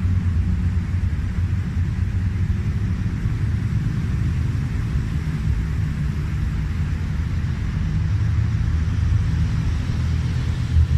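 A steady low rumble with no sharp sounds in it.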